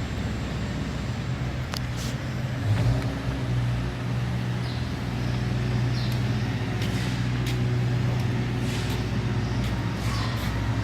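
Engine of heavy construction machinery running steadily at a low pitch, with scattered sharp clicks and clanks.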